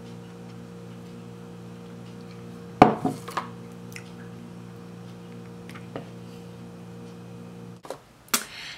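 Kitchen utensils handled: one sharp clunk about three seconds in, then a few light clinks. Under them runs a steady low electrical hum that cuts off shortly before the end.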